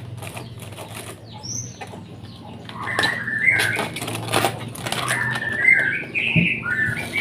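A knife cutting a head of cabbage, with crisp cuts and rustling leaves. From about three seconds in, caged songbirds chirp over it in short bursts.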